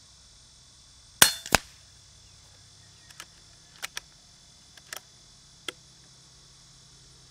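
Moderated shot from an FX Wildcat MK2 Compact .25 regulated PCP air rifle: one sharp report, with a second sharp sound about a third of a second later. Then a few light metallic clicks as the rifle's action is cycled to load the next pellet.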